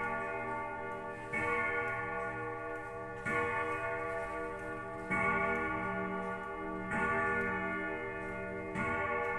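Antique grandfather clock striking, five strikes about two seconds apart, each ringing on until the next.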